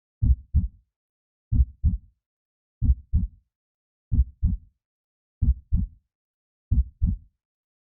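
Heartbeat sound effect: slow, steady lub-dub double thumps, six pairs about one every second and a third, with silence between them.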